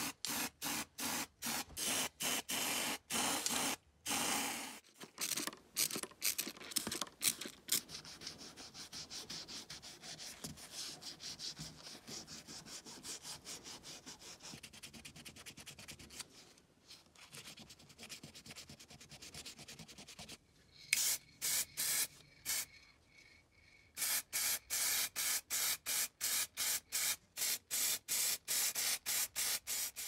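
An aerosol spray-paint can sprayed in quick short bursts, hissing about two or three times a second. Then the primed metal half-shell of an antique coffee grinder housing is wet-sanded by hand with a sanding pad in fast back-and-forth strokes. Near the end the quick spray bursts return.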